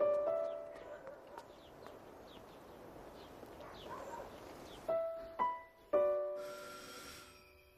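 Sparse piano music: single notes and small chords struck and left to ring and fade, a few near the start and three more about five seconds in. In the quieter stretch between them, faint birds chirp.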